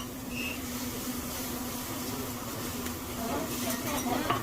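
Restaurant din: indistinct voices of diners in the background over a steady low hum, with a few faint clicks.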